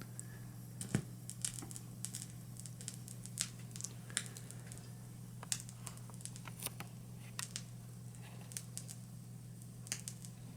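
Vinyl record surface noise on a Sony PS-LX22 turntable as the stylus rides the lead-in groove: faint, irregular crackles and pops over a steady low hum, just before the music begins.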